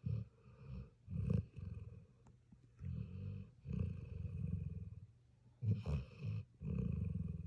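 Sleeping puppy snoring: low, fluttering snores on its breaths, coming every second or two, with louder snores about a second in and again about six seconds in.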